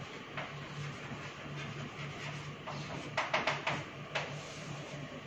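Chalk tapping and scratching on a chalkboard as words are written, with a cluster of quick taps about three seconds in. A low steady hum runs underneath.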